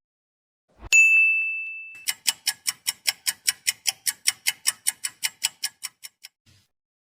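Two sound effects in a row. First a single bright bell-like ding rings out and fades over about a second. Then comes a fast, even run of about twenty sharp ticks, around five a second, that fades away near the end.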